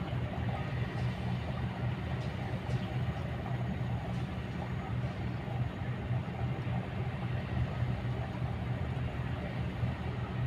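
Kobelco excavator's diesel engine running at a steady, even drone.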